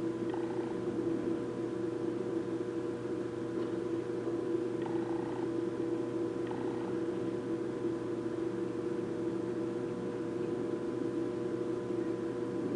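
Steady hum of several constant tones, room tone with no speech or music, with a few faint short tones about a third of a second in and again around five and six and a half seconds in.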